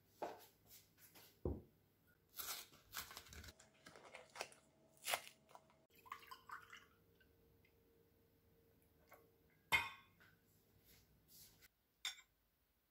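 Faint tableware sounds: light clicks and knocks of a fork and plate, milk poured into a glass about six seconds in, and a sharp knock, the loudest sound, near ten seconds in.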